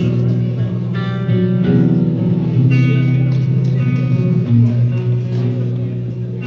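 Acoustic guitar played live, a run of sustained chords and notes that change every second or so.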